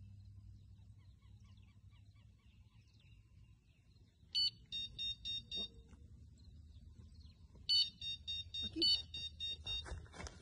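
Electronic carp bite alarm beeping in two quick runs of high, evenly spaced beeps, about four or five a second, the second run longer. This is the alarm registering line being pulled through it: a fish taking the bait.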